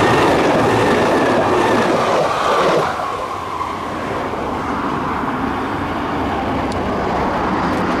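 Kintetsu 'Blue Symphony' (Ao no Kōkyōkyoku) sightseeing express, an electric train, passing close by with its wheels clattering over the rails. The sound is loud for about three seconds, then drops and carries on more softly as the train moves away.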